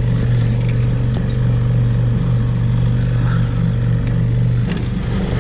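Small 6-horsepower outboard motor running steadily at trolling speed, a low even drone that dips briefly near the end. Light clicks and knocks sound over it.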